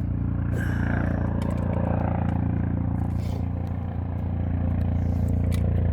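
Steady low mechanical hum, like an engine or motor running, slowly growing louder, with scattered clicks, scrapes and clatter of things being handled.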